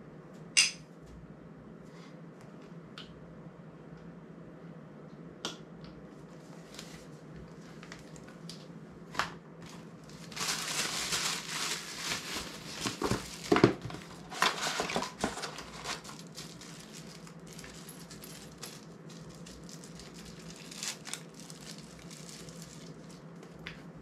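A clear plastic bag crinkling as it is handled, for about five seconds in the middle. Single small clicks of handled parts come before and after it.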